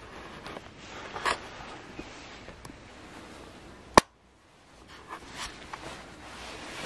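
Quiet rustling and handling noises with scattered small clicks, and one short, sharp click about four seconds in.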